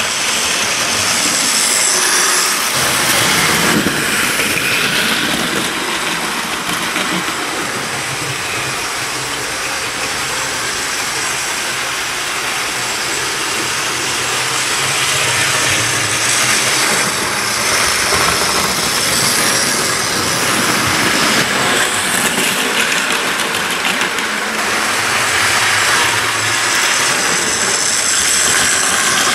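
OO gauge model diesel locomotive and its wagons running along the layout's track: a steady, noisy rattle and hum of the small motor and wheels on the rails that swells and fades a little as the train passes.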